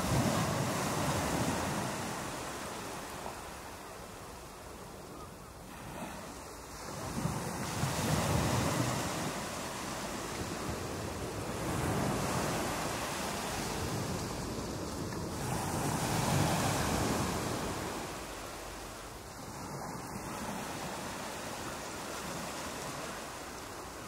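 Ocean surf: waves breaking and washing in, the rushing noise swelling and ebbing every few seconds.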